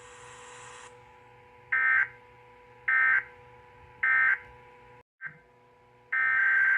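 Emergency Alert System SAME data tones: three short, harsh digital bursts about a second apart, the end-of-message code closing a tornado warning. After a brief dropout, a longer burst of the same kind begins the next alert's header.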